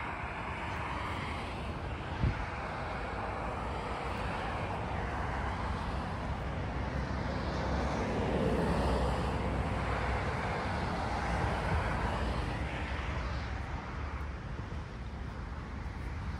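Road traffic going by on the road beside the pond: tyre and engine noise swelling and fading, loudest about halfway through, over low wind rumble on the microphone. A brief knock about two seconds in.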